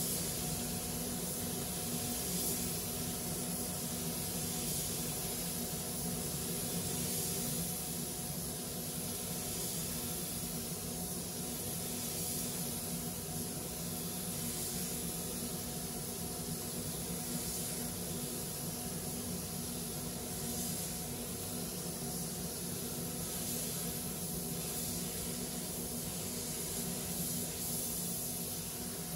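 Gravity-fed compressed-air spray gun hissing as red paint is sprayed onto a van's body panels, the hiss swelling with each pass. Underneath is the steady hum of the spray booth's air system.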